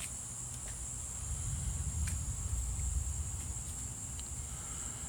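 Steady high chirring of crickets. A low rumble swells in the middle of it for about two seconds and then eases off.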